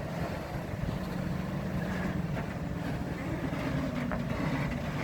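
Farm tractor engine running steadily under load as it pulls a loaded trailer of potato boxes.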